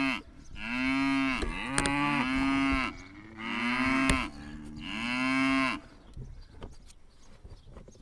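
Cattle mooing: several long, loud moos one after another, stopping about six seconds in.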